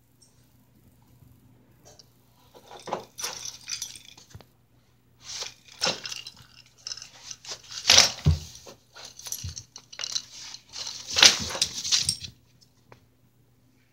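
Dog scuffling with a fabric toy ball on a wooden floor: irregular rustles and scrapes in several bouts, with one heavy thump about eight seconds in. A faint steady low hum lies underneath.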